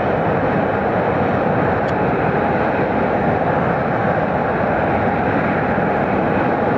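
Jet airliner engine noise: a steady, even rumble that neither rises nor falls.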